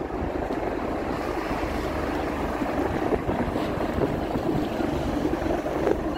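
Steady rumble of a helicopter hovering out over the sea, mixed with wind buffeting the microphone and surf breaking on rocks.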